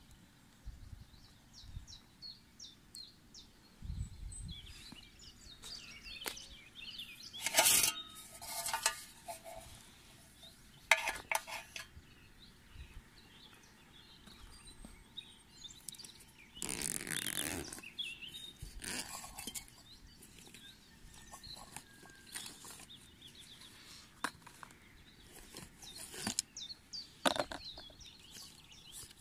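Quiet outdoor ambience with faint bird chirps, broken by scattered clicks, clinks and a few short rustling bursts of objects being handled close by.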